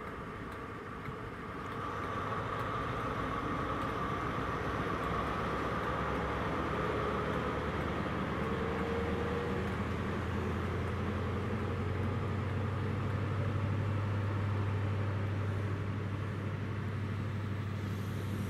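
High Speed Train's Class 43 diesel power car working as the train pulls away from a standstill. The engine gets louder about two seconds in, with a whine early on and a low steady drone that builds as the coaches roll past gathering speed.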